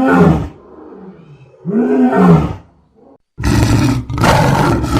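Lion roaring: two drawn-out roars that rise and then fall in pitch, followed from about three and a half seconds in by a rougher, harsher roar.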